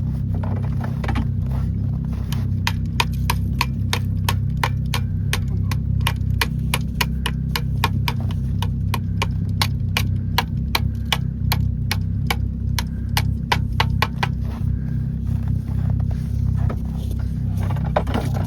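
Steady low engine rumble, with a rapid run of sharp clicks, about three or four a second, from a couple of seconds in until about three-quarters through.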